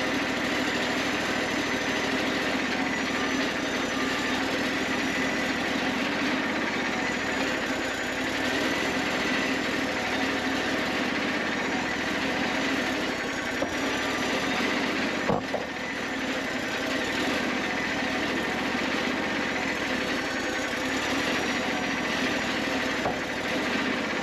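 Wood-Mizer LT40 portable band sawmill running steadily under its engine, with a brief sharp knock about fifteen seconds in.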